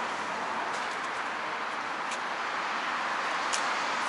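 Steady traffic noise: an even hiss with no clear engine note, with a couple of faint high squeaks about two and three and a half seconds in.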